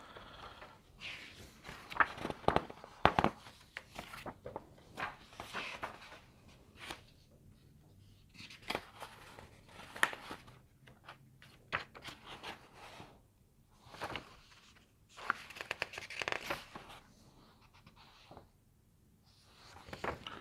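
Paper rustling and crinkling in irregular bursts as printed pages and documents are leafed through and turned.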